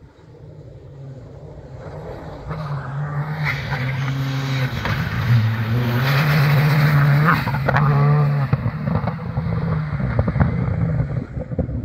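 Škoda Fabia rally car at speed on a gravel stage, growing louder as it approaches, its engine note stepping up and down through gear changes, with gravel and spray hissing off the tyres as it passes closest about halfway through.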